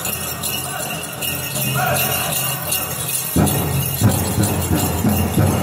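Dancers' leg bells jingling steadily with their steps over powwow song: a drum group singing, with fuller, lower sound coming in about halfway through.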